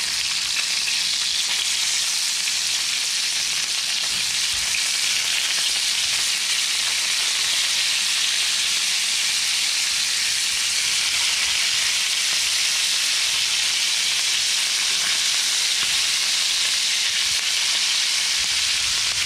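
Mackerel steaks sizzling steadily in hot coconut oil in a pan.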